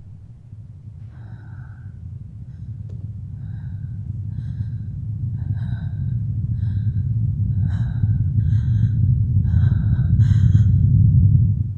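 A low rumbling drone, swelling steadily louder and cutting off suddenly at the end: a horror-film build-up. Over it, a woman takes quick, frightened gasping breaths, one or two a second.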